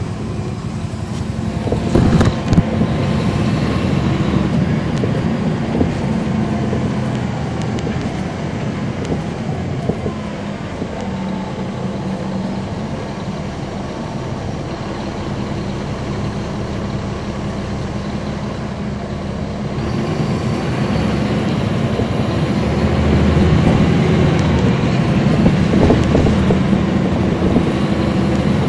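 Caterpillar C13 ACERT inline-six diesel of a NABI 40-foot transit bus, heard from on board, running with a steady low hum. A few sharp knocks come about two seconds in, and the engine grows louder from about twenty seconds in.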